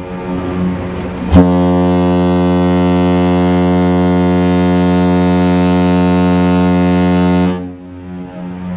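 The Norwegian Gem's ship's horn sounds one long, steady blast of about six seconds. It is a deep tone with many overtones and starts with a sharp crack about a second and a half in. The blasting marks the ship's departure at sailaway.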